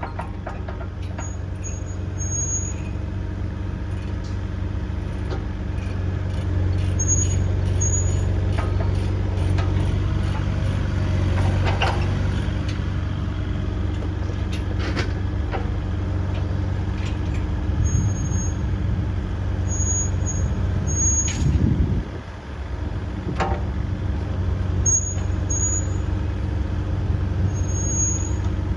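Kubota KX040-4 mini excavator's diesel engine running steadily, with scattered knocks and short high-pitched beeps. About three quarters of the way through the engine surges, then briefly drops off.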